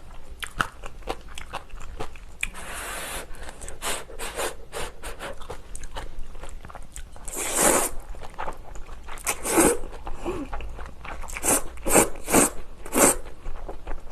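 Close-miked eating of napa cabbage kimchi and instant ramen: wet, crunchy chewing with many small mouth clicks. There are two longer slurps of noodles, about two and a half and seven and a half seconds in, and louder bites near the end.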